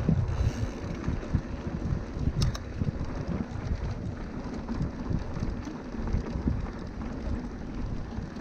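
Wind rushing over the microphone and the rumble of a mountain bike rolling over a dirt trail, with a couple of brief clicks about two and a half seconds in.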